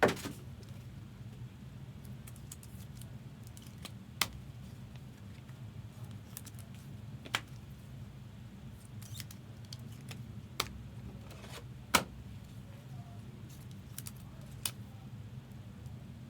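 Trading cards being handled and set down: a handful of sharp taps and clicks a few seconds apart, the loudest at the start and about twelve seconds in, over a steady low hum.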